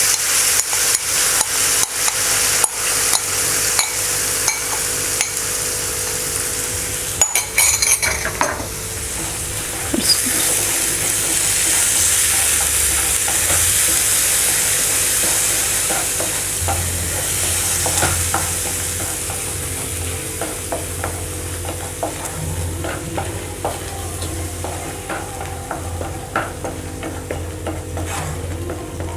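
Tomato puree sizzling as it fries in hot oil and spices in a pan, with a spoon clicking and scraping against the pan as it is stirred. The stirring clatter is densest in the first several seconds and grows sparser later.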